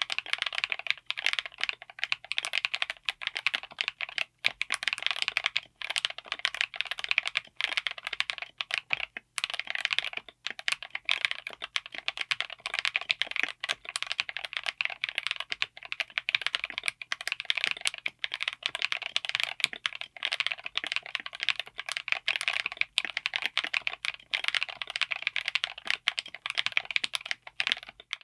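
Fast, continuous typing on a mechanical keyboard fitted with Gateron Smoothie Chocolate tactile switches, which are all-POM. The board is a DZ60 PCB with an FR4 plate in a Tofu60 aluminium case. The keystrokes run densely and without a pause, giving a loud, thocky sound.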